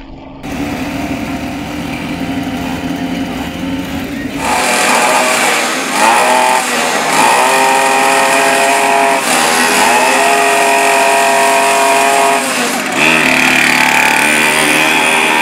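Several mini GP pocket bikes' small engines running, then revving hard from about four seconds in, the pitch rising and falling with the throttle.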